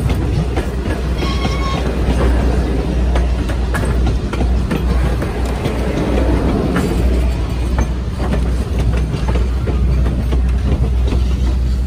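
Train of passenger coaches rolling past close by: wheels clicking over rail joints over a steady rumble. A brief high-pitched tone sounds about a second and a half in.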